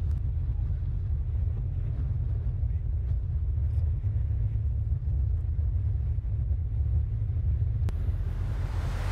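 Steady low rumble of wind buffeting and road noise on the microphone of a moving camera vehicle, with a single sharp click about eight seconds in and a hiss swelling near the end.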